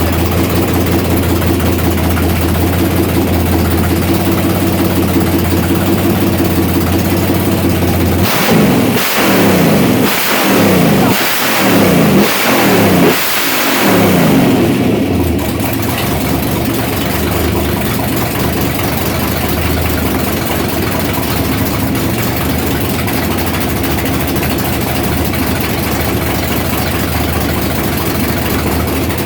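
Freshly built racing Ford 289 small-block V8 on its first run, idling steadily, then given several quick blips of the throttle partway through before settling back to a steady idle.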